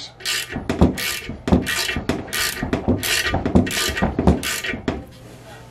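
Hand ratchet wrench working a bolt in short back-and-forth strokes, its pawl clicking in quick bursts about twice a second. It is tightening the bolts that draw a bolt-in sprag's outer cam into a 727 transmission case. The clicking stops near the end.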